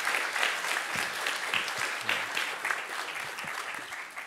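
Audience applauding at the end of a lecture, the clapping dying away near the end.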